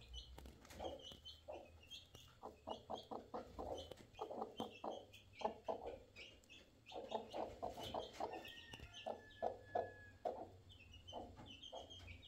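Broody hen sitting on her eggs, clucking in quick runs of short, low clucks, several a second.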